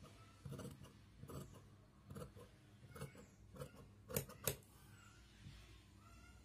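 Tailor's scissors snipping through cloth: a series of short, crisp snips about one a second, the two loudest close together about four seconds in.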